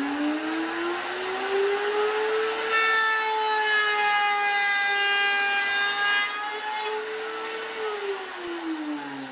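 Table-top router with a 1/4-inch bit: the motor whine climbs as it comes up to speed, then holds steady. It cuts a groove along a 3/4-inch pine test piece, louder and harsher while the bit is in the wood. About eight seconds in the whine falls away as the router spins down.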